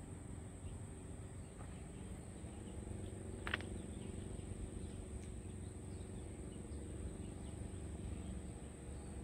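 Outdoor summer ambience: a steady high-pitched insect chorus over a low steady rumble, with one brief high sound about three and a half seconds in.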